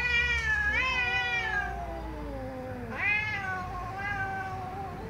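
Two domestic cats yowling angrily at each other in long, drawn-out calls that rise and then fall in pitch. A high yowl and a lower, falling one overlap in the first two seconds. A new yowl starts about three seconds in and is held for about two seconds.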